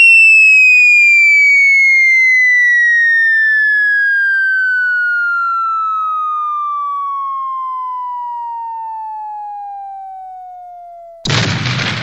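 Cartoon falling-bomb sound effect: a single whistle glides slowly down in pitch and grows fainter for about eleven seconds, then cuts into a short explosion near the end.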